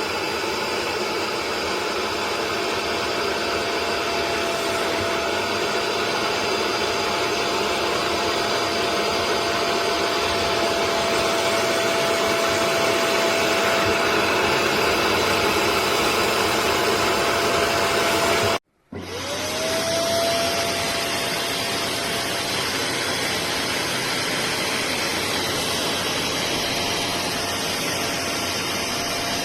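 Upholstery and carpet wet vacuum's motor running with a steady whine. About two-thirds of the way through it breaks off for an instant, then starts again, its whine rising quickly back to pitch.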